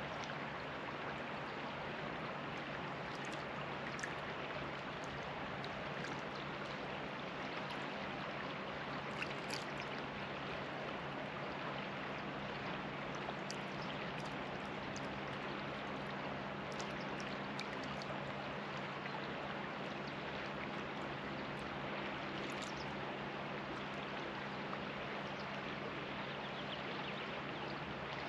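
Shallow river flowing over pebbles close by: a steady rush of water with a light splash or trickle now and then.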